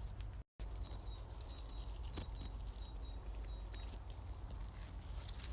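Outdoor ambience: a steady low wind rumble on the microphone, with a bird giving a run of short, evenly spaced high chirps. The sound cuts out completely for a moment about half a second in.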